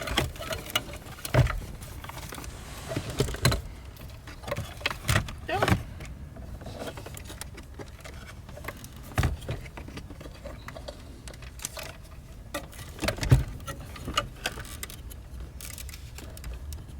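Scattered clicks, knocks and light rattles of a double DIN head unit and its plastic and metal mounting kit being handled and fitted into a car's dashboard opening. The sharpest knock comes about 13 seconds in.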